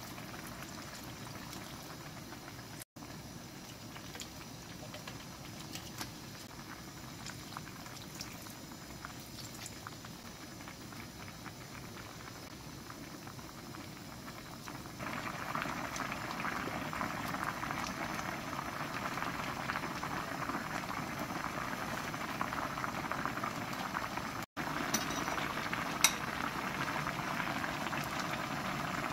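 Saury kimchi stew bubbling at a steady boil in a stainless steel pan, the bubbling louder from about halfway on. A single sharp click near the end.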